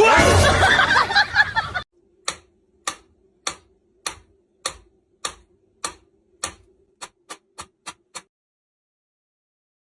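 A loud, dense burst of noise, then a run of sharp ticks about one every half second that quicken near the end, over a faint steady hum.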